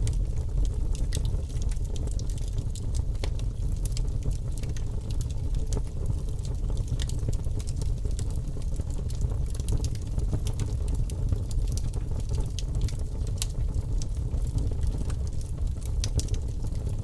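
Wood fire crackling, with many sharp irregular pops over a steady low rumble.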